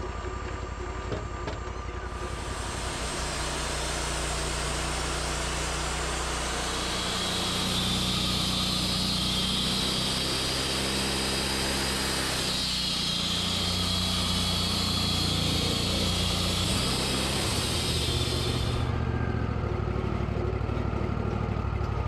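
Sawmill engine running steadily while the blade cuts lengthwise through an ash log. A loud, hissing cutting noise starts about two seconds in and stops shortly before the end, and the engine note shifts as it takes the load.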